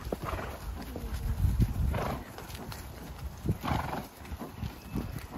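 Hooves of horses thudding on grass, heard from the back of a moving horse, with two short breathy blows about two seconds in and just before four seconds.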